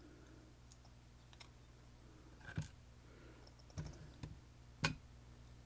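Sparse light clicks and taps of small metal lock parts, about six at uneven intervals with the loudest near the end: pins and tools being handled as a dimple lock's core is taken apart.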